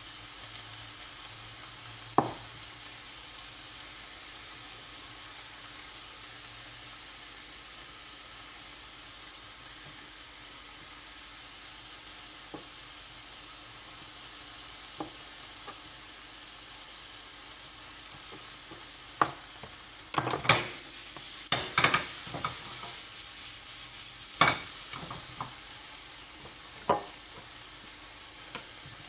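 Chicken pieces sizzling steadily in a frying pan on a gas burner, with scattered sharp pops and a cluster of louder crackles about two-thirds of the way through.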